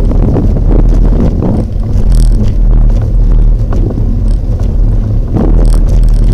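Wind buffeting the microphone of a bike-mounted action camera: a loud, low rumble that swells and dips in gusts.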